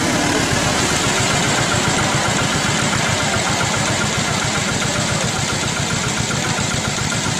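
An engine idling steadily: a fast, even low pulsing under a constant noise.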